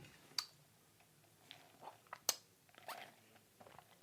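Faint chewing and mouth sounds, with a few short sharp clicks, the sharpest about two and a quarter seconds in.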